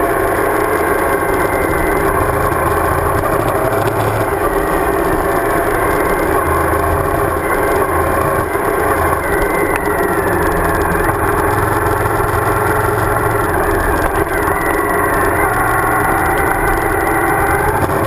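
Suzuki DL1000 V-Strom's V-twin engine running under way, heard from on board the motorcycle, its note rising and falling a little with the throttle.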